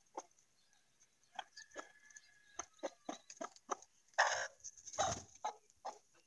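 Chickens feeding, with many short soft clucks and clicks. About four and five seconds in there are two louder rushes of wing-flapping as a hen flutters her wings.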